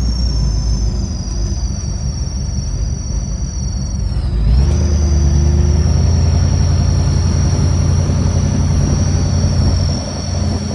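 Low, steady rumble like a vehicle running or driving, louder from about halfway through and easing near the end, with a faint steady high-pitched whine above it.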